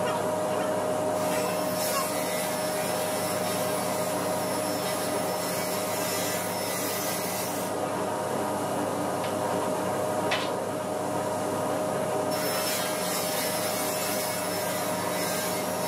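Sliding table panel saw running with a steady whine as its blade cuts through a wooden panel, twice: one cut from about a second in to about eight seconds, and another from about twelve seconds on, each adding a loud hiss over the motor's steady tone.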